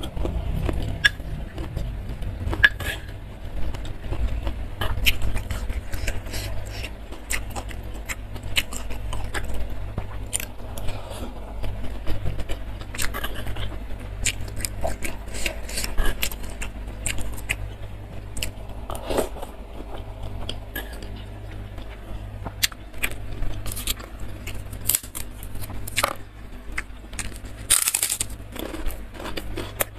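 Close-miked eating: a metal fork clicking and scraping against a stone mortar and wet chewing of sauce-soaked fried tofu and chilies, over a low steady hum. Near the end comes a sharp crunchy bite into a puffed krupuk cracker.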